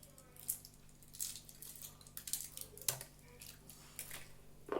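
Scattered light clicks and rustles, about half a dozen short ones, from ingredients and packets being handled and added to a blender jug.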